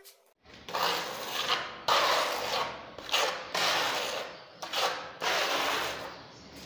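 Metal putty knife scraping as it spreads wall filler across a painted wall, in a series of long strokes at about one a second.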